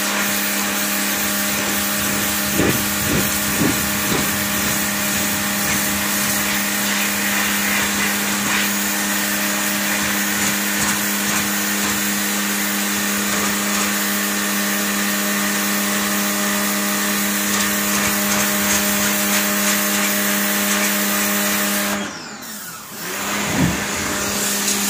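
Takara Europa 130-bar high-pressure washer running: a steady motor and pump hum over the hiss of the water jet hitting concrete paving. About 22 seconds in the hum winds down and cuts out, then starts up again a second or two later.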